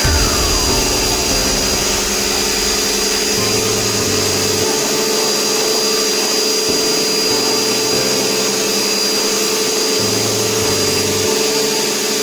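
Steady running of a motor-driven machine, an even rushing noise with a constant whine held at one pitch.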